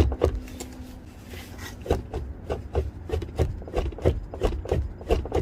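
Front door of a 2004–2008 Nissan Maxima rocked up and down by hand, clunking on its hinges with each movement at about three knocks a second, with a pause of about a second and a half near the start. The clunks come from play in worn door hinges.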